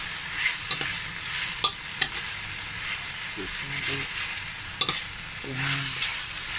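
Beef, onion and garlic sizzling in an oiled wok while a spatula stirs them, with several sharp clicks as the spatula knocks against the pan.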